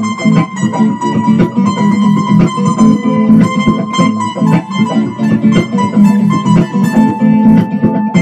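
Music led by a guitar picking a quick run of plucked notes over a pulsing low bass line.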